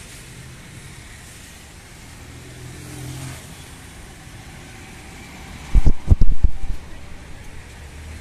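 Street traffic, with scooter and motorcycle engines running past. About six seconds in comes a short cluster of very loud low thumps, the loudest thing heard.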